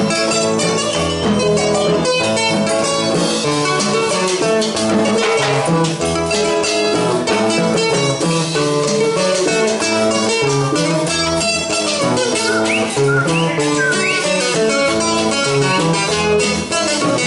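Live Latin string-band music played without words, led by an acoustic guitar picking a quick melody over a moving bass line.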